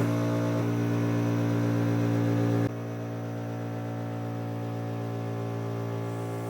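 Steady electrical hum with many overtones, dropping abruptly in level a little under three seconds in.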